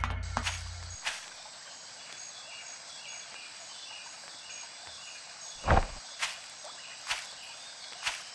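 Outdoor summer ambience with insects chirping in a steady, evenly repeating rhythm. In the second half come slow footsteps, about one a second, the first the loudest. Background music ends about a second in.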